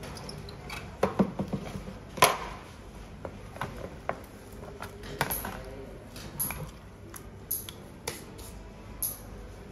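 Scattered light clicks and taps of small hard objects being handled and set down, with a quick run of small knocks just after a second in and the loudest click about two seconds in.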